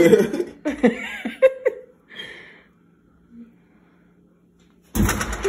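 Laughter and breathy voice sounds for the first two seconds, then a quiet stretch with a faint steady hum. About five seconds in, a sudden loud noise comes in and voices return.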